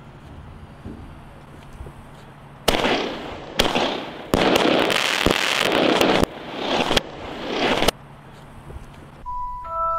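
Fireworks firing red shots: a run of sudden, loud blasts of rushing noise starting about three seconds in and lasting about five seconds. A glockenspiel tune starts near the end.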